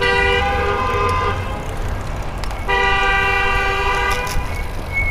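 Car horn honking two long blasts, the second starting a little over a second after the first ends, over the steady rumble of road traffic.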